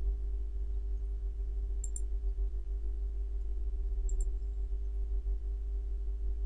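Steady low electrical hum with a few faint steady tones above it. Two pairs of quick computer mouse clicks come about two and four seconds in.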